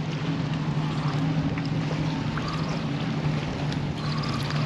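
Steady low hum of an idling boat engine over the wash of sea water, with a few faint clicks.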